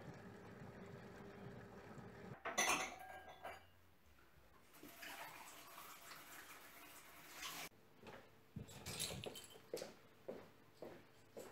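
A low steady hum stops about two seconds in. Then comes a brief clatter of dishes and glasses, the loudest sound, then a few seconds of hiss and a run of short soft knocks near the end.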